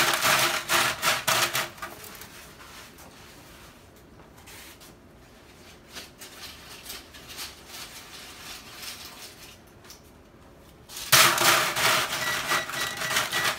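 Tortilla chips crackling and rustling as gloved hands spread them in a disposable aluminium foil pan, in two spells: for the first couple of seconds and again from about eleven seconds in, with a quiet stretch between.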